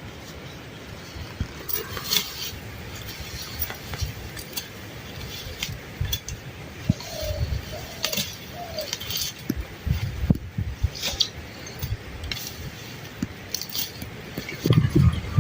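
Dishes and utensils clinking and knocking at irregular intervals.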